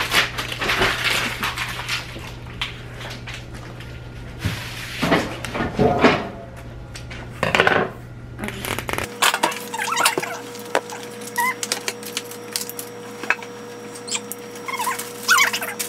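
Kitchen shears snipping and a raw turkey's plastic wrapper crinkling and tearing as it is cut open and pulled off, in irregular bursts of rustling with small clicks. A faint steady hum comes in about nine seconds in.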